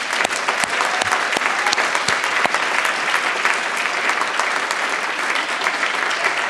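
Audience applauding: a dense round of clapping from many hands.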